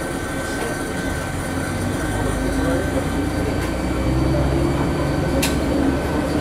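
Sanriku Railway 36-100 series diesel railcar's engine, heard inside the cab, revving up as the train pulls away from a station. Its note steps up and grows louder about two and four seconds in.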